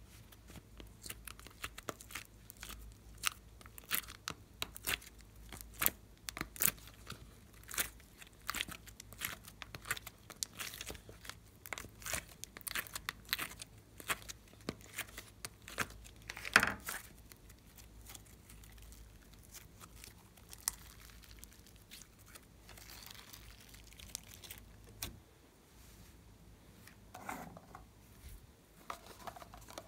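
Soft coloured clay peeled out of the cells of a plastic ice cube tray, making a dense run of sharp crackling and tearing sounds. There is one louder tear about 16 seconds in, then only sparse soft crackles.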